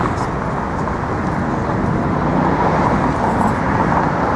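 Steady city street noise, with road traffic running by as a continuous low rumble.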